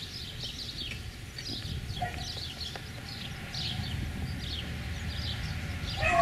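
Small birds chirping repeatedly: short, high, downward-sliding chirps, several a second, over a low steady rumble.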